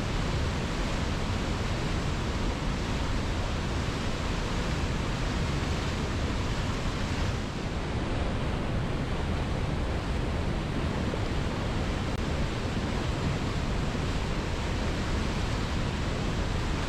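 Waterfall rushing over rocks: a steady, dense roar of falling water that briefly dips about seven and a half seconds in.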